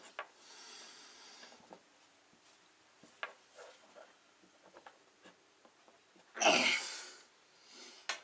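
Scattered light clicks as the piston's wrist-pin retaining clip is worked into its groove by hand, with effortful breathing through the nose. About six and a half seconds in comes one loud, forceful breath out, with a softer one near the end.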